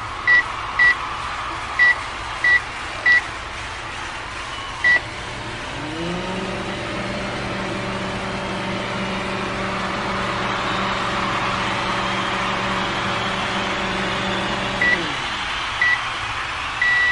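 Microwave oven being set and run: its keypad beeps about six times, then the oven starts with a rising hum, runs steadily, and winds down about nine seconds later. It beeps again near the end as the cycle finishes.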